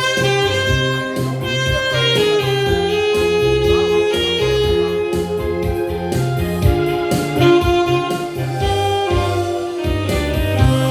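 Saxophone playing a melody over a band accompaniment with a steady, repeating bass line.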